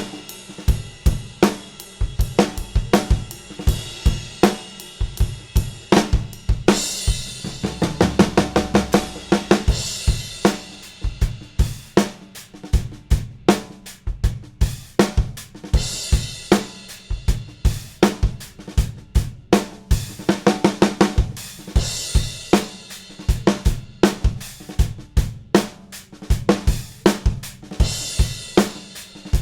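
Drum kit playing a groove built around a Gretsch Broadkaster snare drum, with bass drum and hi-hat. Cymbal crashes wash over it several times, and a fast run of strokes comes about eight seconds in.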